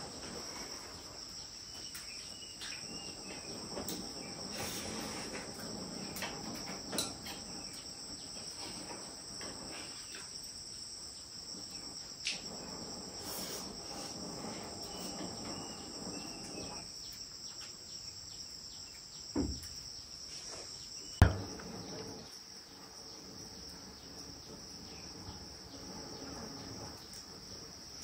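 Insects chirring in a steady, high-pitched drone, with a few scattered knocks from things being handled, the sharpest about three-quarters of the way through.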